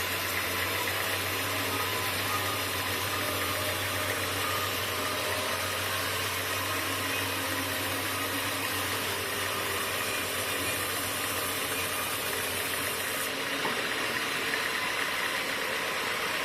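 Sawmill machinery running steadily with a low hum and a high whine over a broad mechanical noise. The hum and whine stop about 13 seconds in while the rest of the machine noise goes on.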